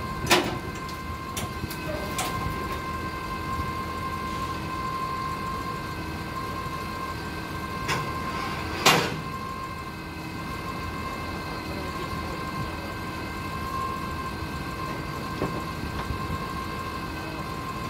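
Propane-powered Hyundai forklift engine running at a steady idle with a constant hum. A few sharp knocks sound over it: one at the start, one about two seconds in, and the loudest about nine seconds in.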